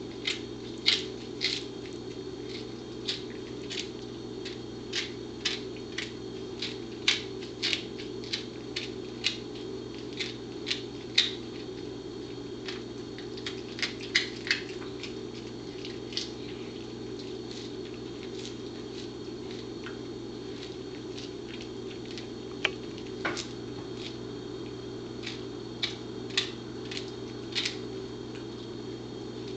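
A Pembroke Welsh Corgi gnawing a whole beef Achilles tendon chew: irregular sharp crunches and clicks of teeth on the tendon. They are frequent for about the first fifteen seconds, then sparser, over a steady low hum.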